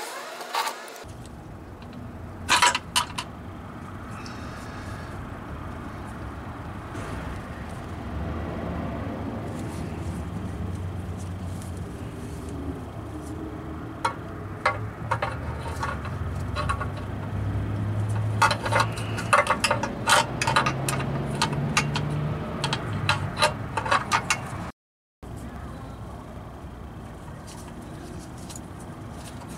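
Scattered metallic clicks and clinks of hand tools and parts being worked at the underside of an automatic transmission while the pan and filter are reinstalled, over a steady low hum. The clicks are sparse at first and come thicker in the second half.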